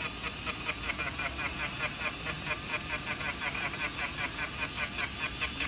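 Low-speed dental handpiece spinning a pink rubber polishing wheel, used to polish a composite front-tooth restoration. It makes a steady hiss with a rapid, even ticking of about five a second.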